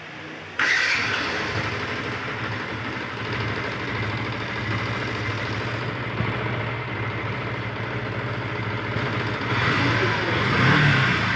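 Yamaha FZS V2's single-cylinder air-cooled engine running steadily at idle, coming in abruptly about half a second in.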